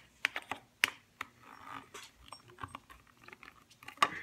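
Sharp clicks and taps of small plastic toy pieces being handled and fitted onto a toy wrestling ring. There is a quick cluster of clicks in the first second or so, softer rustling in the middle, and a louder knock near the end.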